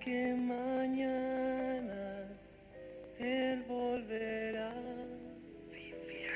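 Slow opening-theme music of held melodic notes in two phrases, the second coming in about three seconds in, with a hissy wash swelling up near the end.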